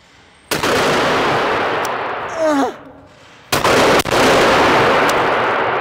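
Two shotgun shots about three seconds apart, each followed by a long reverberant decay in a large enclosed shooting hall, with a brief shout between them.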